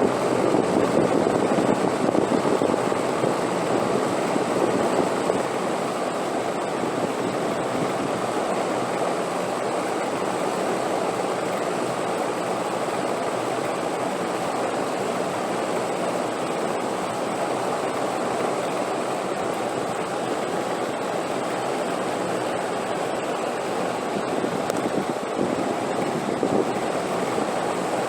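Wind blowing steadily, swelling a little louder for the first few seconds and again near the end.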